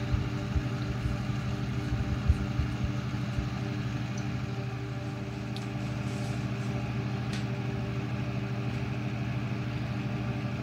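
A steady low machine hum runs throughout. A few soft low knocks from small parts being handled on a workbench come in the first few seconds, the strongest a little over two seconds in.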